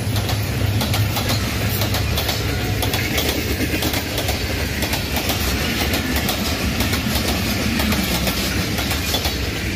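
Passenger coaches of an express train rolling past at speed, their wheels clattering in a quick run of clicks over the rail joints.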